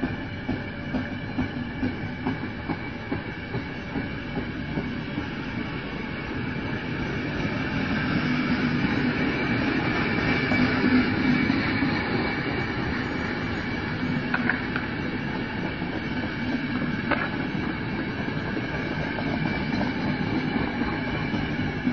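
Passenger train coaches rolling slowly past on the track, their wheels clacking over rail joints. The clacks come about twice a second at first, then the rolling grows louder around the middle as the heavier sleeping cars pass.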